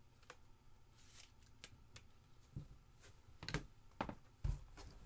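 Trading cards being handled and set down on a table: faint, irregular clicks and taps, with a few heavier knocks in the last second and a half.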